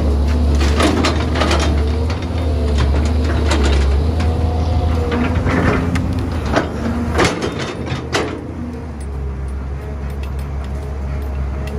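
Caterpillar 320B excavator's diesel engine running with a steady low drone, while a bucketful of dirt and clods is dumped into a steel dump truck bed, clattering and knocking for most of the first eight seconds. After that mostly the engine is heard.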